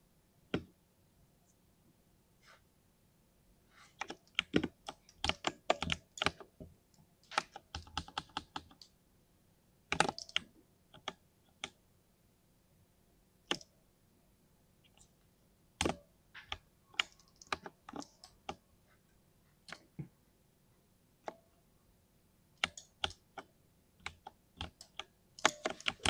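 Typing on a 60% mechanical keyboard with lubed linear switches: keystrokes in irregular quick bursts, separated by short pauses.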